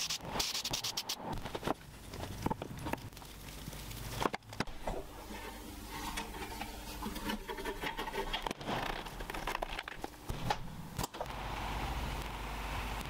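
Hand-work sounds on wooden and copper parts: scattered taps and knocks, with a stretch of scraping in the middle.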